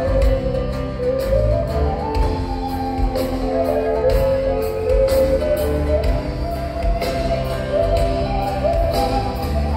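Live band music played through a PA and heard from the crowd in a large hall: a lead melody line stepping up and down over guitars and a steady beat, with no singing.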